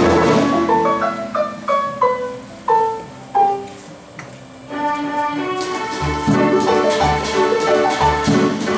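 Automated mechanical orchestra machine playing: a run of single struck notes stepping down in pitch, each ringing out and fading, then about halfway the full ensemble comes in with a regular bass beat under it.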